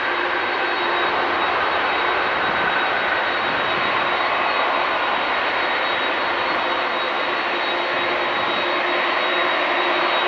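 Boeing 747-8F's four GEnx jet engines running during the landing rollout just after touchdown: a loud, steady jet rush with a thin high whine held on top.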